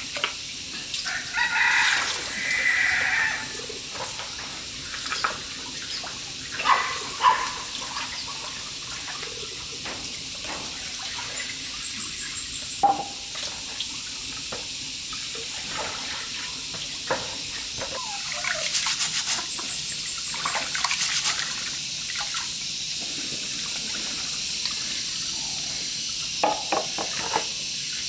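Water running steadily, with a chicken-like call about two seconds in and scattered clicks and knocks.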